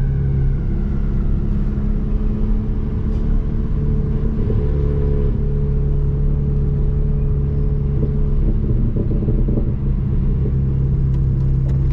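Stage 2 tuned Mk7 Volkswagen GTI's turbocharged 2.0-litre four-cylinder running at a steady, light-throttle cruise. It makes a low, even drone over road rumble, with a slight change in engine note about four to five seconds in.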